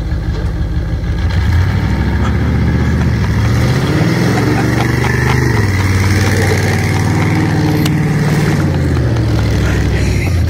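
1931 Ford Model A rat rod's engine revving up and down as the car spins donuts in snow. It picks up sharply about a second in, then rises and falls in pitch several times.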